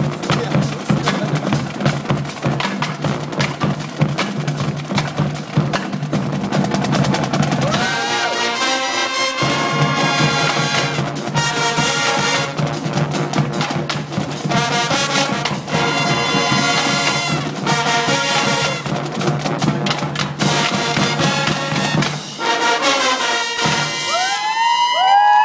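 Drum and bugle band playing: marching drums alone for about the first eight seconds, then the brass comes in with held chords over the drums. The crowd begins cheering and whistling just as it ends.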